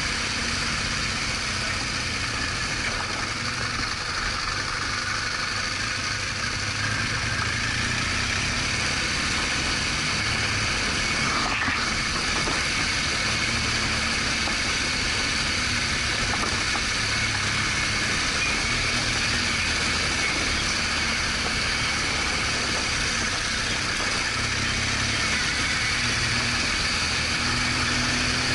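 BMW R1200GS Adventure's boxer-twin engine running steadily under a constant rush of noise, as heard from the bike.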